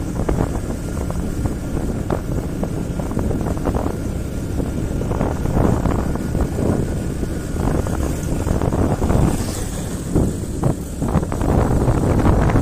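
Wind buffeting the microphone over the steady running of a motorcycle and its tyres on the road, in irregular gusts.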